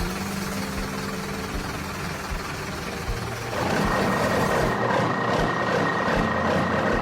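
Heavy construction machine engine running steadily. About halfway in it grows louder, with a steady high whine added. Soft low beats keep time about every three-quarters of a second underneath.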